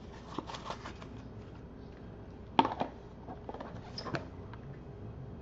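Trading cards being handled and slid out of a cardboard pack sleeve: light rustles and small card clicks, with one sharper click about two and a half seconds in.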